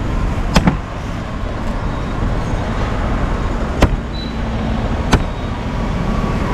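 Machete chopping into a green coconut: four sharp chops, a quick pair near the start, then two more a little over a second apart later on. Steady road traffic runs underneath.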